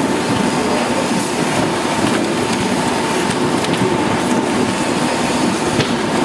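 Rotary die cutting machine for corrugated board running steadily: a continuous mechanical clatter with scattered sharp clicks and a thin steady high tone.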